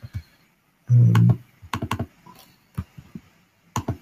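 Typing on a computer keyboard: irregular keystrokes, a few at a time, as a command is entered. A short hum of voice comes about a second in.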